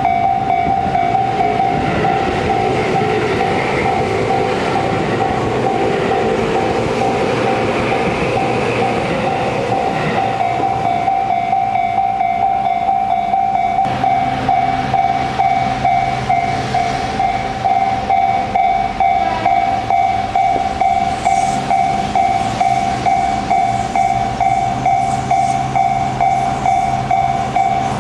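Japanese level-crossing warning bell ringing its fast, repeating 'kan-kan' tone while a Tobu Urban Park Line train rumbles over the crossing. The train noise eases about halfway through and the bell keeps ringing.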